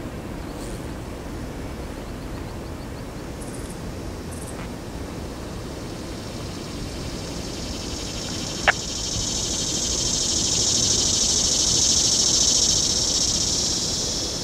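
Cicadas buzzing in the trees, the high buzz swelling for several seconds in the second half and fading near the end, over a steady low outdoor rumble. A single sharp click sounds about nine seconds in.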